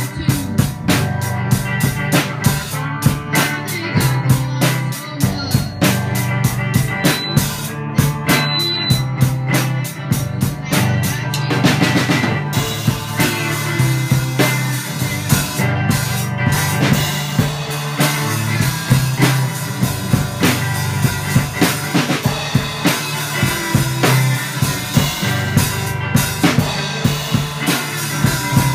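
A small rock band playing live: a drum kit keeps a steady beat with cymbals, under electric guitars played through small practice amps.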